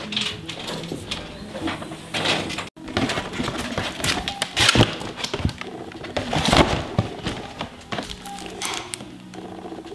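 Packaging being handled and torn open, rustling and crackling in irregular bursts, with the sharpest crackles around the middle.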